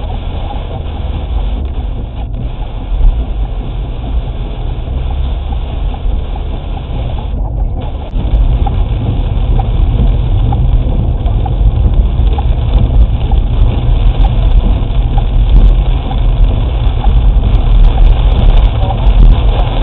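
Cabin noise of a Seat Leon 1.9 TDI driving on a rain-soaked road: a steady low rumble of engine and tyres with the hiss of water and rain, getting louder about eight seconds in.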